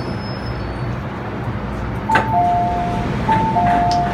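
Metro train running, a steady low rumble inside the carriage. About two seconds in, the on-board two-note falling chime sounds twice.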